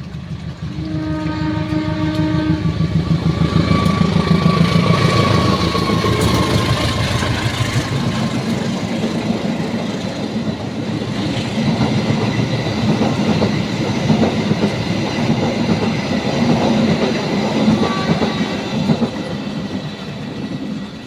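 A diesel train passing close by: a horn sounds for about two seconds near the start, over the rumble and rhythmic clatter of the wheels on the rails, which grows loudest a few seconds in and carries on.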